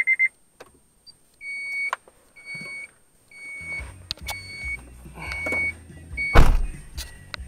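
Short high electronic beeps with clicks, then low bass-heavy music from the car stereo through Scosche 6.5-inch four-way speakers comes in about halfway, with one loud thump near the end.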